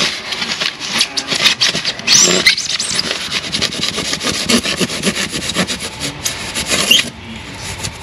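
Handsaw cutting through a 100 mm foil-faced PIR (Celotex) insulation board in rapid back-and-forth strokes, a rasping scrape that stops near the end as the cut goes through.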